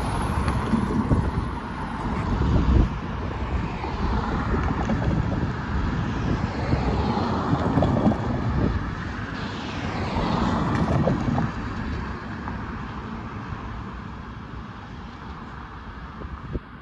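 Cars driving past on the road, the tyre and engine noise swelling and fading as each one goes by, with wind rumbling on the microphone. It grows quieter toward the end.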